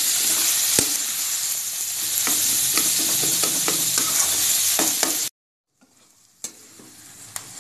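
Potato and brinjal mash sizzling in hot oil in a metal kadhai while a metal spatula stirs and mashes it, with many sharp clicks and scrapes of the spatula against the pan. The sizzle cuts off suddenly about five seconds in, leaving only a few faint taps.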